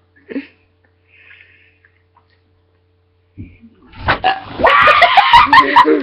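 A few seconds of quiet, then from about four seconds in a loud, long vocal sound from a person that runs on.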